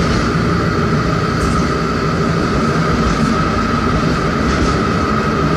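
Tram running along the street rails, heard from inside the car: a steady rumble of wheels and running gear with a constant high hum over it.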